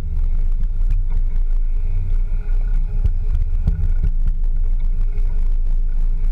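Land Rover Discovery 2 crawling slowly over rocky, rutted ground, heard from a camera mounted low on the vehicle's body. A heavy, steady low rumble of the running gear and engine comes through the mount, with scattered knocks and clatter as the tyres and body hit stones.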